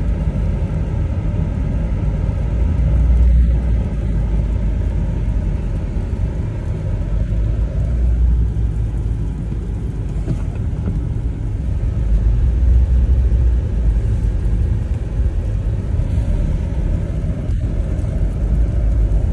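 Steady low rumble in the cabin of a Chevrolet Tahoe driving through deep, rutted snow: engine and tyres running on snow.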